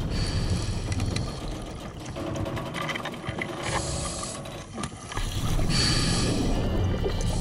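Diver moving through a narrow steel submarine hatch underwater: gurgling bubbles and a run of clicks and knocks from gear against the hull in the middle.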